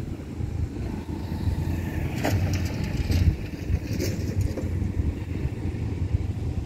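Low, steady rumble of an approaching diesel commuter train, with two sharp knocks about two and four seconds in.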